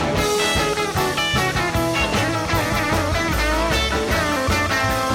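Rock and roll song playing: an instrumental stretch with guitar and drums, no vocals.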